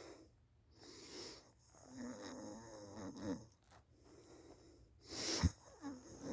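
A person snoring in sleep: slow, noisy breaths, one long snore with a wavering pitch a couple of seconds in, and a louder, sharper snort about five seconds in.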